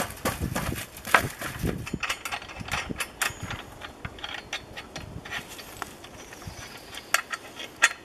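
Irregular sharp clicks and knocks of hand work on a wire fence, with a few low thumps in the first two seconds.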